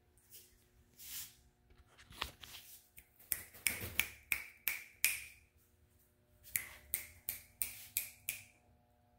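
Finger snaps in two quick runs of about six, roughly three a second, with a few softer snaps before them. A faint steady hum lies underneath.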